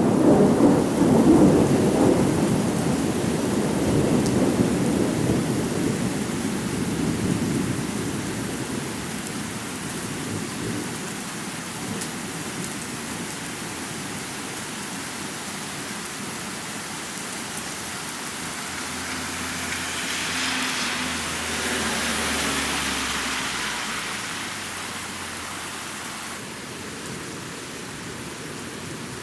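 Thunderstorm: a roll of thunder at the start dies away over several seconds above steady rain. A second, quieter rumble of thunder swells and fades about two-thirds of the way through.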